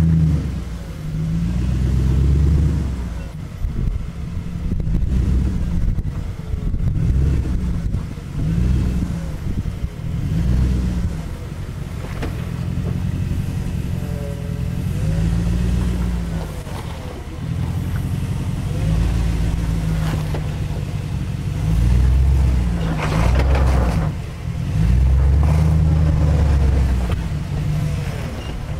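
Jeep Grand Cherokee WJ's engine revving up and dropping back again and again under load as the 4x4 crawls up out of a deep sandy rut.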